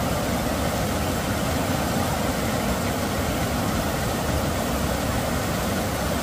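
Rushing water making a steady, unbroken noise.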